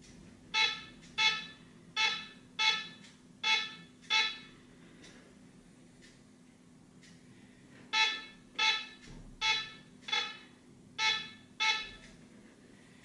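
Seben Deep Target metal detector giving a short pitched beep each time a coin is passed in front of its coil, a sign that it has detected the target. Six beeps come about 0.7 s apart, then a pause of a few seconds, then seven more.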